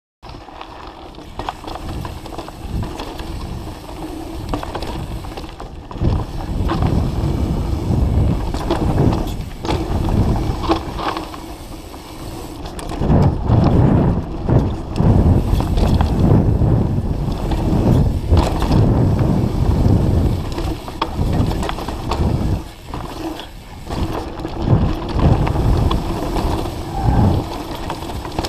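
Mountain bike running down a dirt singletrack: tyres rumbling over the ground, with the bike's chain and frame rattling and knocking over bumps. Quieter for the first few seconds, then louder and rougher from about six seconds in as the bike picks up speed.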